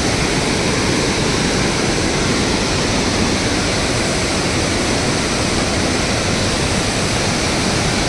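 A large waterfall and the rocky stream at its foot rushing, a steady, unbroken sound of water.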